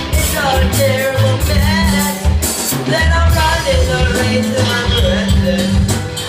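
Live rock band playing a half-time shuffle groove, with drum kit and bass under a wavering melody line.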